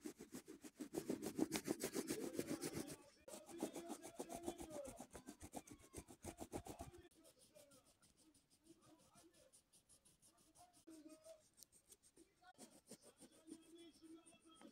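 Pastel crayon rubbed rapidly back and forth across paper, a fast run of rubbing strokes. After about seven seconds the strokes become fainter and sparser as smaller areas are coloured.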